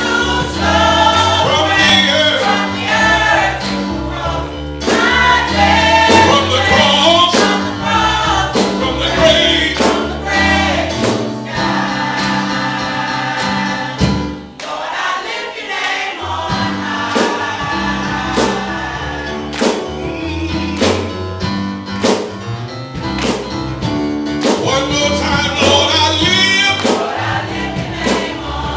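A choir singing a gospel song with band accompaniment and a steady beat. Near the middle the bass drops out for about two seconds, then comes back in.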